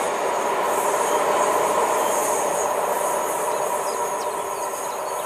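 Freight train of open wagons behind a class 123 electric locomotive rolling away along the track: a steady rumble of wheels on rail that slowly fades as it recedes.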